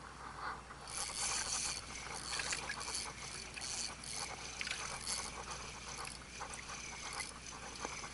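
Daiwa 13 Certate 2004CH spinning reel being cranked in a fast retrieve. Its gears and rotor make a dense, rapid run of fine mechanical clicks, starting about a second in.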